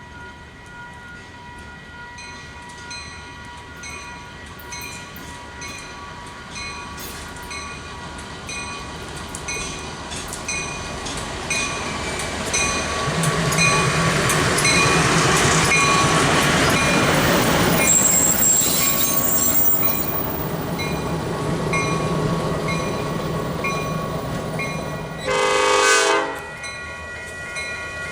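Baldwin S12 diesel switcher locomotive approaching and passing, its engine and rolling wheels growing loud through the middle. One short horn blast sounds a little past three-quarters of the way through. A steady, rapid repeating ring goes on underneath.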